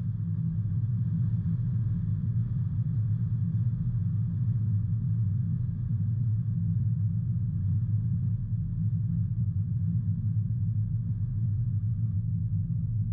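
Car driving at steady speed: a constant low rumble of engine and road noise.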